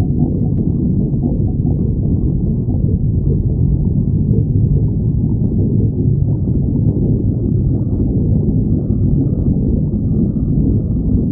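A person's hungry stomach growling: a continuous low rumble that wavers in strength without a break.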